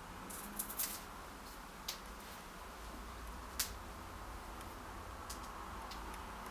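Quiet room tone, a steady faint hiss, broken by a few short sharp clicks: a quick cluster just under a second in, another near two seconds, and the loudest a little past three and a half seconds.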